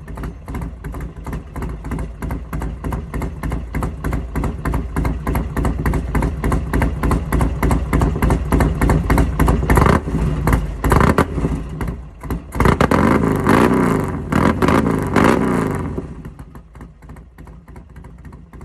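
A 2007 Buell Lightning's V-twin engine idling with an even, pulsing beat while it warms up after a cold start. It is blipped a couple of times about ten seconds in, then revved repeatedly for a few seconds before dropping back to idle near the end.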